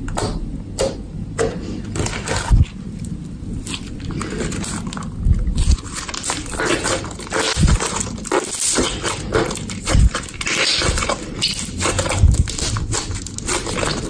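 Thick slime being pressed flat and then squeezed and kneaded by hand, making irregular wet squishing and crackling with a few soft thumps.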